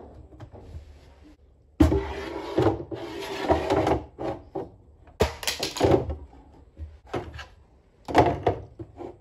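Things being handled in a kitchen cabinet: a sudden burst of knocking and clattering about two seconds in, lasting about two seconds, then more knocks in the middle and near the end.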